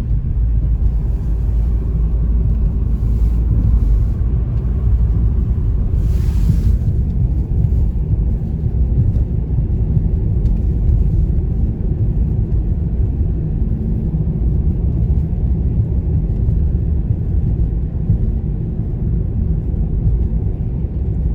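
Steady low road and engine rumble of a moving vehicle heard from inside the cabin on snowy roads, with a brief hiss about six seconds in.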